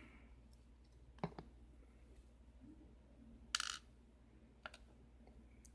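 Faint, sparse metallic clicks of small lock pins and a tool being handled as a Kwikset lock cylinder's pin stack is taken apart: a sharp tick about a second in, a slightly longer click in the middle, and another tick near the end.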